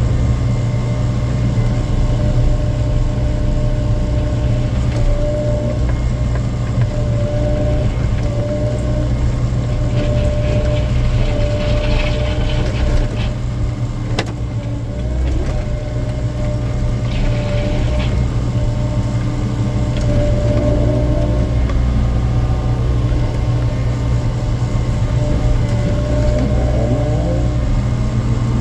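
Excavator diesel engine running steadily under working load, with a hydraulic whine that wavers up and down as the boom and bucket move. Short harsh bursts of noise come in about ten and seventeen seconds in.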